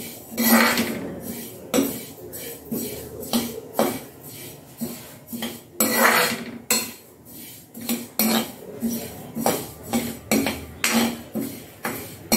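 Metal ladle scraping and clinking against a metal kadhai as white sesame seeds are stirred while dry-roasting, with the seeds rattling in the pan. The strokes come about twice a second, with longer scrapes about half a second in and again about six seconds in.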